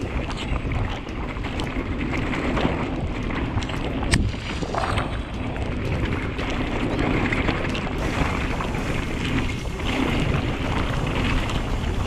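Wind buffeting the microphone and an Audax enduro mountain bike's tyres rolling fast through wet mud and standing water on a rainy downhill run, with a sharp click about four seconds in.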